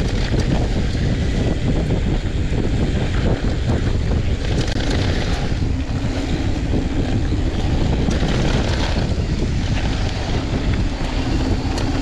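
Wind rushing over the microphone of a mountain bike descending fast on loose, dusty dirt singletrack, with the tyres rolling and the bike rattling over the trail. The hiss swells in brighter stretches about four and eight seconds in.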